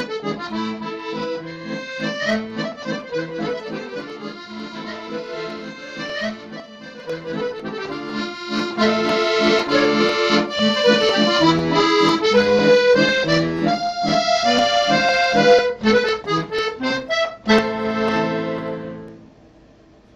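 Accordion music: a melody over chords that grows louder about halfway through, then ends on a held chord that fades out near the end.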